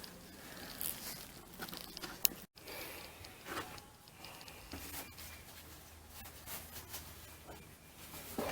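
Faint rustling and handling noises with scattered light clicks, one sharper click a little over two seconds in, typical of hands working with a cloth or container.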